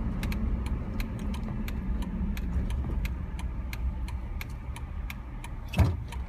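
Car driving, heard from inside the cabin: a steady low engine and road rumble with many light ticks, and a single thump near the end.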